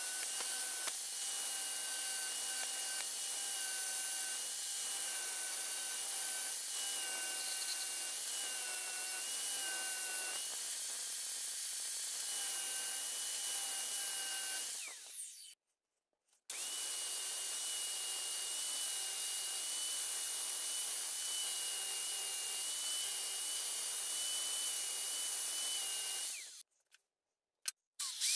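Handheld rotary tool with a small grinding disc running at speed and grinding the edge of a steel saw-blade knife blade: a steady high whine over a grinding hiss. It stops about 15 s in, starts again a second later, and stops again near the end.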